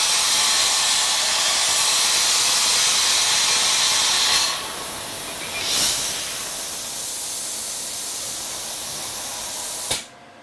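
Razorweld 45 plasma cutter's machine torch cutting steel on a CNC table, a loud, steady hiss. About four seconds in it drops to a quieter air hiss, swells briefly, then cuts off with a sharp click near the end.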